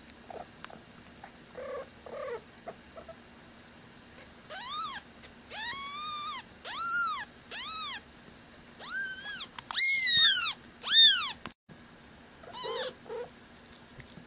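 Twelve-day-old kittens mewing: a run of high, arching cries that grow loudest about ten seconds in. Softer, lower mews come at the start and near the end.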